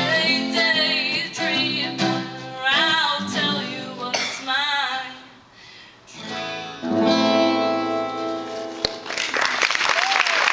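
A woman singing to two strummed acoustic guitars, the song ending on a held final chord. Near the end the audience starts applauding and cheering.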